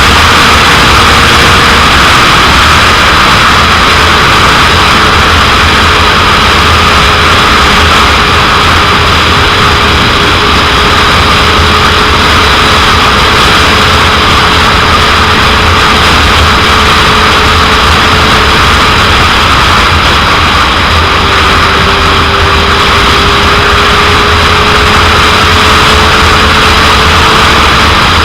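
Heavy wind noise on the microphone of a 2001 Suzuki GSX-R750 being ridden, loud and steady. The bike's inline-four engine note is faintly audible underneath, its pitch drifting slowly.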